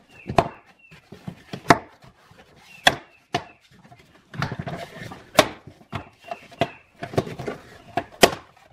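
Plastic cargo-area sill trim panel being pulled up by hand, its retaining clips popping loose in a series of sharp snaps, with plastic rubbing and rustling between them.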